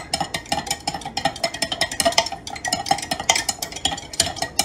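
Metal butter knife stirring liquid in a glass jar, clinking rapidly and rhythmically against the glass.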